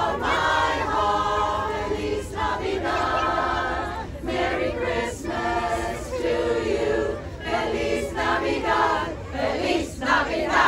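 Women's chorus singing together in harmony, in several sung phrases separated by short pauses.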